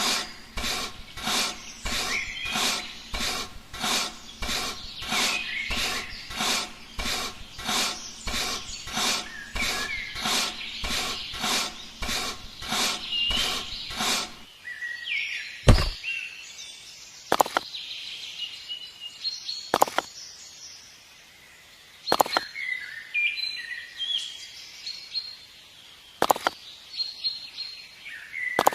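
Small birds chirping over a regular knocking of about two beats a second, which stops about halfway through. Birdsong carries on after that, broken by a few sharp clicks several seconds apart.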